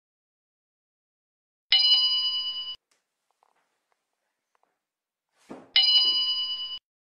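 Bell-like ding sound effect chimed twice, about four seconds apart, each ringing for about a second and fading, marking a point on the scoreboard. A short soft thump comes just before the second chime.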